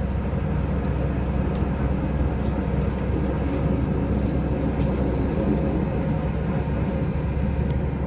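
Steady low rumble and hum of an airliner cabin parked on the ground, with a few faint ticks over it.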